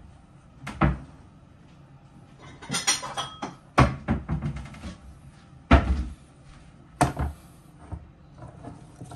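Kitchen handling knocks and clatters: about five separate sharp knocks, at about one second in, around three and four seconds, and the loudest near six and seven seconds, with quiet between.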